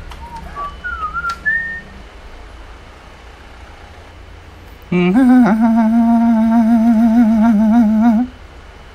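A person imitating a motorcycle engine with their mouth. A few short whistled chirps come first. About five seconds in comes a loud hummed start-up that jumps up in pitch, then settles into a steady, wavering idle for about three seconds and cuts off.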